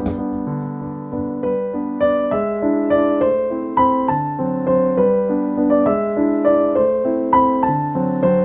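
Background piano music: a slow melody of single notes over sustained lower chords.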